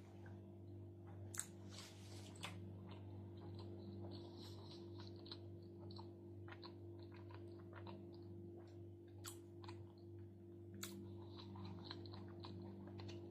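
A person chewing a mouthful of food with the mouth closed: faint, soft crunching and small wet mouth clicks, over a steady low hum.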